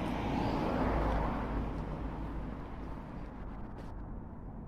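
A car passing on the street: a broad rush of tyre and engine noise with a low rumble, loudest about a second in and fading away.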